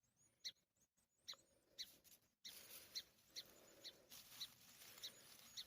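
A small bird giving repeated short, faint, high chirps, roughly one every half second.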